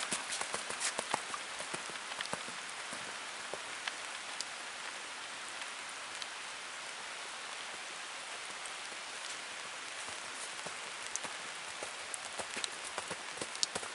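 Hoofbeats of a young horse on a sand arena, loudest in the first second or two and again near the end as it passes closer, over a steady hiss.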